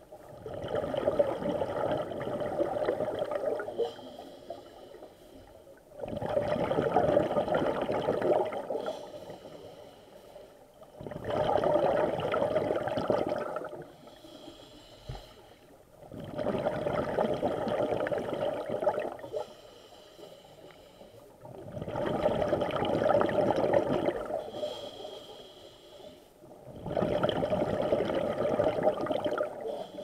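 Scuba diver breathing through a regulator, heard underwater. Six loud rushes of exhaled bubbles, each two to three seconds long, come about every five seconds, with a fainter hiss between them.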